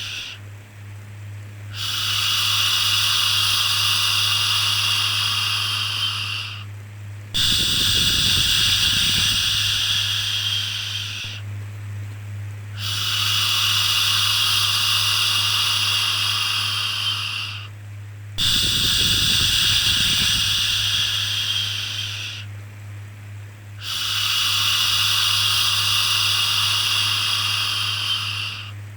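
Long 'shhh' shushing sounds for soothing a baby, each held about four to five seconds and repeated five times with short pauses between, over a steady low hum.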